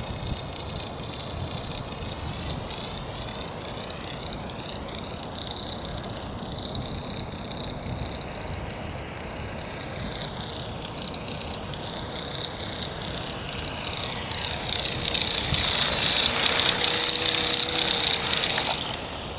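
Accurate 400 radio-controlled helicopter hovering: a high whine from its drive over rotor noise, wavering in pitch, growing louder toward the end and then dropping away. It is flying after a crash, running with abnormal noise and vibration.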